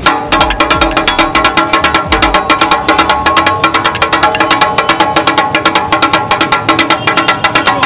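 Two metal spatulas beaten fast and rhythmically on a large iron tawa griddle, chopping and mixing taka tak offal (kidneys, sweetbreads, hearts, brains): a quick, even, ringing metallic clatter.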